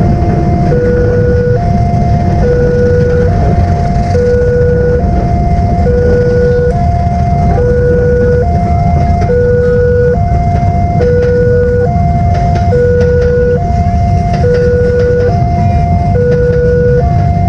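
Indonesian railway level-crossing alarm sounding its two-tone electronic signal, a lower and a higher tone taking turns, each held a little under a second. Under it runs the steady low rumble of a passenger train going past on the rails.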